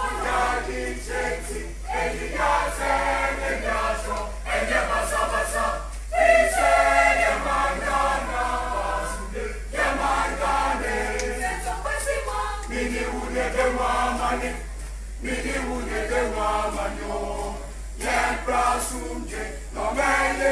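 Background music of voices singing together as a choir, in phrases with brief pauses between them.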